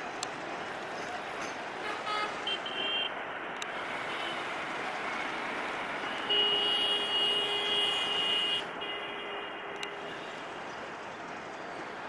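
A horn sounding: a few short toots about two seconds in, then one long steady blast of about two seconds starting some six seconds in, over a steady background noise.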